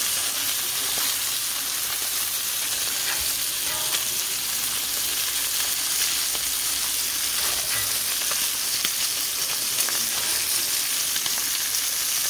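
T-bone steak frying in butter and oil in a skillet, a steady sizzle with scattered small crackles, as a spoon bastes the steak with the hot fat.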